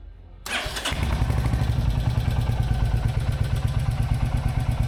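Royal Enfield Hunter 350's single-cylinder engine, with its stock exhaust and dB killer in place, starts about half a second in and settles at once into a steady idle with an even beat.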